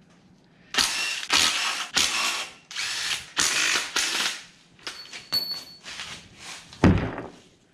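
A wrench working bolts on an engine in about five short runs, then lighter clicks and a single heavy thud near the end.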